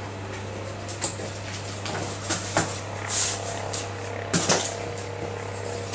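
Cardboard box being opened by hand: its flaps are pulled back with a few sharp scrapes and rustles, over a steady low hum.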